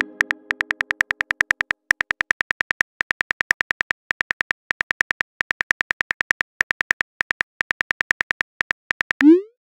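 Simulated phone-keyboard clicks, about eight a second, as a text message is typed out letter by letter. Near the end comes a short rising swoosh, the message-sent sound effect.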